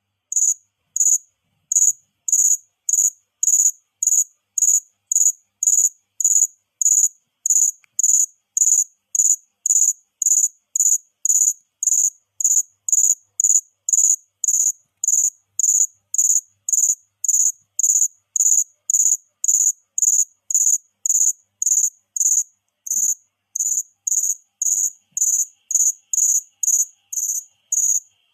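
Cricket chirping: short, high-pitched chirps repeated in a steady rhythm, about two a second.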